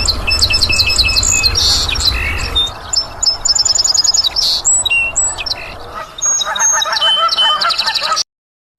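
Several birds chirping and trilling over a background hiss, in quick repeated notes, until the sound cuts off abruptly just before the end.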